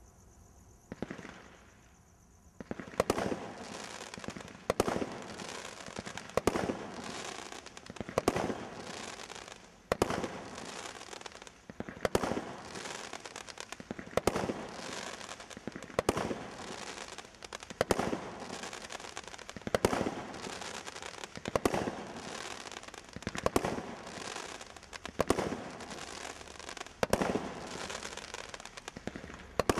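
Brothers Pyrotechnics 'Starring' 16-shot Roman candle battery firing. After a brief fizz as the fuse burns, it fires one shot roughly every two seconds, with continuous crackling and fizzing from the stars between the shots.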